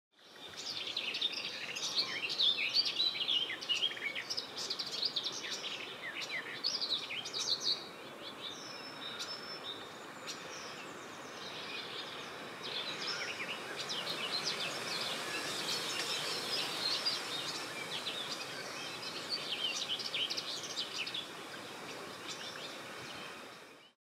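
Garden warbler singing its long, rapid, warbling song in two extended stretches, with a sparser break of a few seconds in the middle, over a steady background hiss.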